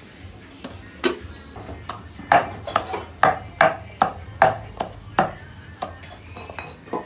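Wooden pestle pounding garlic and salt in a wooden mortar: about ten knocks, two to three a second, starting about a second in.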